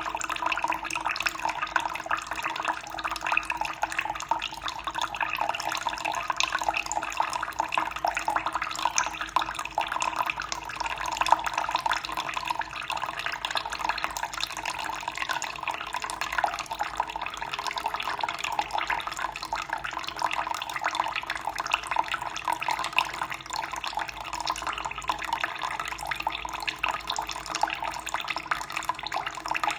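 Running water splashing steadily without a break, with a faint steady hum underneath.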